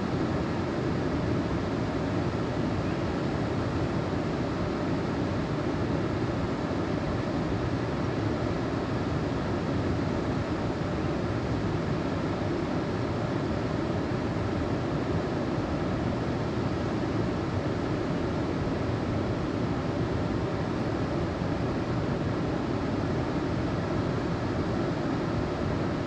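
Steady rushing of creek water pouring into a deep canyon pool, an even noise without breaks.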